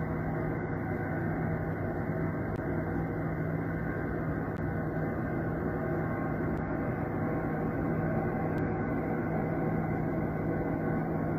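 A low, steady droning hum, with one strong unchanging low tone under a dense rushing noise. It is one of the unexplained 'strange sky sounds' heard over cities, described as the whole sky wailing.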